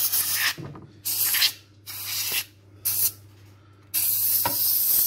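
Compressed air hissing in short blasts over a water-washed motherboard, driving water out of the chips and memory slots. Four brief blasts come about a second apart, then a steady blast starts about four seconds in.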